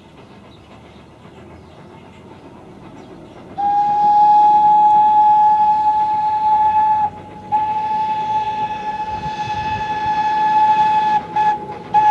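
Steam whistle of the full-scale Thomas the Tank Engine locomotive blowing the grade-crossing signal, starting about three and a half seconds in: two long blasts, a short one, then a final long one begun near the end, all on one steady note. Before it, the train runs along the track more quietly.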